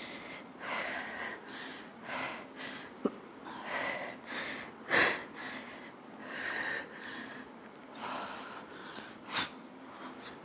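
A woman breathing hard from exertion during bench tricep dips, in quick, uneven breaths about once a second, the loudest breath about halfway through.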